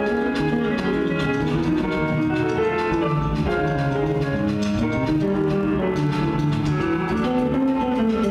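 Live jazz group playing: a drum kit keeping up steady strokes under several layered, held pitched notes from the band.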